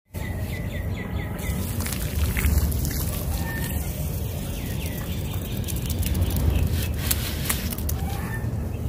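Water poured in a steady stream over dry sand-cement blocks, splashing and soaking into them, with a few sharp clicks about seven seconds in. A small bird chirps quickly several times in the background during the first second or so.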